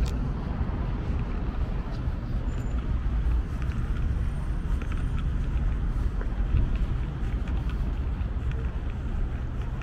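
Wind buffeting the microphone as a low, uneven rumble, over general outdoor urban ambience.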